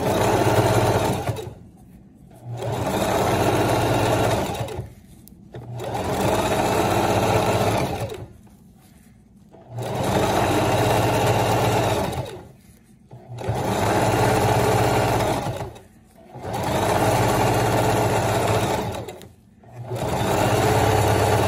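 Sewing machine running in short bursts of about two seconds, seven in all, stopping briefly between each.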